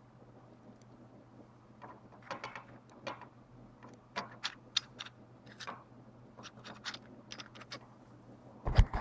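Irregular plastic clicks and rattles from a Lego Technic 8459 wheel loader fitted with steel forks, as a hand works its fork carriage and lift arm, starting about two seconds in. Near the end comes a louder, denser clatter.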